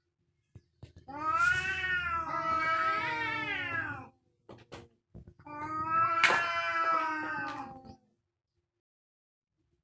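Angry domestic cat caterwauling: two long, wavering yowls of about three seconds each, the drawn-out threat call of a cat squaring up to fight. A sharp click sounds in the middle of the second yowl.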